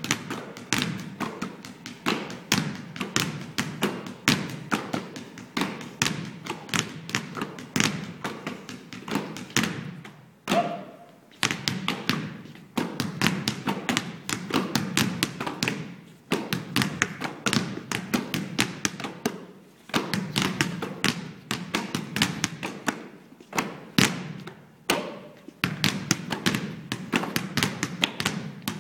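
Several basketballs dribbled in rhythm on a stage floor as a percussion piece: a fast, dense pattern of bounces, broken by a few brief pauses.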